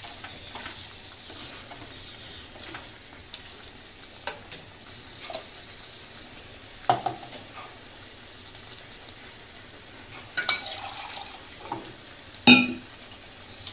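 Chicken pieces in thick masala sizzling in an aluminium pot, scraped and stirred with a wooden spatula. Scattered knocks throughout, the loudest a sharp knock near the end.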